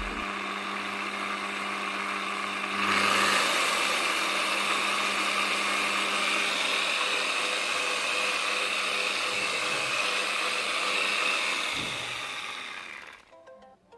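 DeWALT DWP849X electric rotary polisher running with no load, a steady motor whine. It gets louder and brighter about three seconds in, holds steady, then winds down and stops near the end.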